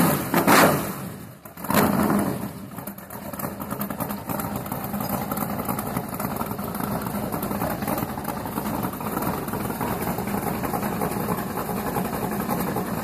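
V8 engine in a modified riding lawn mower, revved twice in the first two seconds, each rev falling away, then settling into a steady idle.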